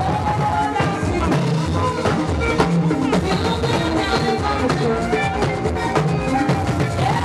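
Live band music with drums and a steady beat.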